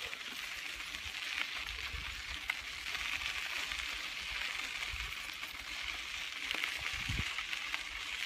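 Bicycle riding on a dirt trail: a steady crackling hiss from the tyres, with wind buffeting the microphone in low, uneven gusts.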